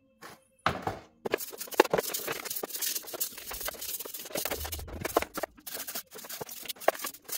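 Irregular scratching and scraping on the M272 engine's metal oil filter housing as its old degreaser-softened gasket is worked loose, in quick uneven strokes that start about a second in and stop near the end.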